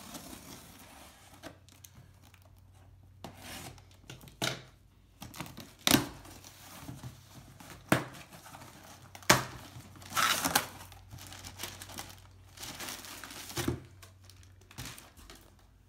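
Packing tape being cut and torn from a cardboard box, the box being opened, and plastic wrapping crinkling as the packed item is lifted out. It comes as scattered short rips and knocks, the sharpest between about six and ten seconds in.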